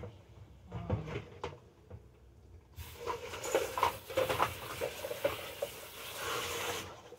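Kitchen sink tap turned on about three seconds in and running for about four seconds, then shut off, with dishes clinking under the water; a few knocks of dishes being handled come before it.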